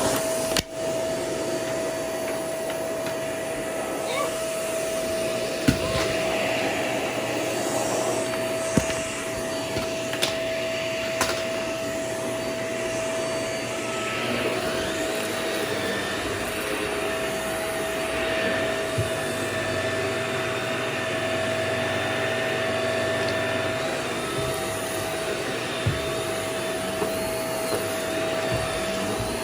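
Vacuum cleaner running steadily with a constant whine, and a few sharp clicks and knocks scattered through it.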